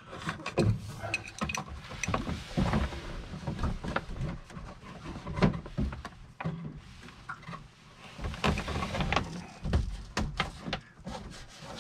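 Handling noise of plastic-sheathed electrical cable being pulled and worked by hand against wooden framing: rustling with scattered light clicks and knocks, the loudest about halfway through.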